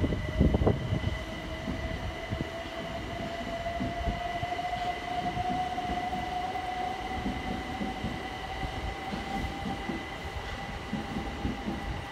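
Southeastern electric multiple unit pulling through the station, its traction motor whine climbing slowly in pitch as it gathers speed, over a low rumble of wheels on the track. A steady higher whine sits above it, with heavier low buffeting in the first second.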